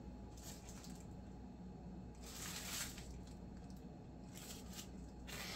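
Faint, intermittent rustling and crinkling of statue packaging being handled, with the longest rustle about two and a half seconds in.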